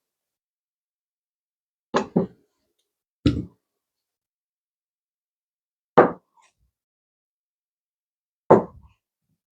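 Sharp, isolated knocks from potatoes being cut up and handled in the kitchen, five in all: a quick pair about two seconds in, then single knocks spaced a few seconds apart.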